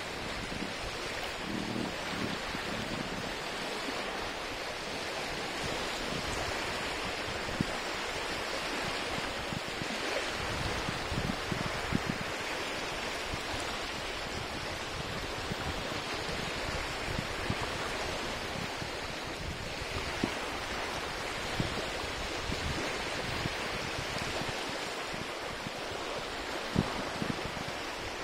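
Small, calm waves lapping and breaking on a sandy lake shore: a steady wash of water with a few brief, louder splashes.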